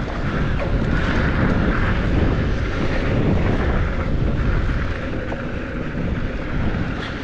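Wind rushing over the action camera's microphone with a steady low rumble, mixed with mountain-bike tyres rolling over loose dirt on a downhill trail.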